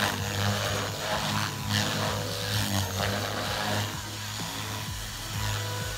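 450-size RC helicopter flying 3D manoeuvres: a steady motor and rotor hum with repeated blade whooshes that come and go as it changes attitude.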